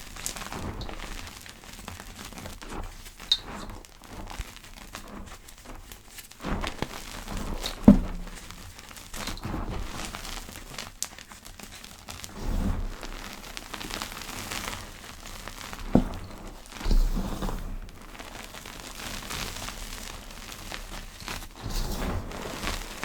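Soft powder, such as a block of gym chalk, being crushed and worked, giving irregular soft crackles and crunching with a couple of sharper taps.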